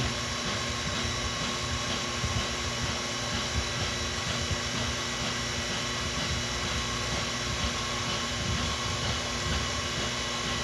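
Okamoto ACC-818NC surface grinder running on power feed, its wheel grinding A2 tool steel as the table traverses: a steady machine drone with several constant tones.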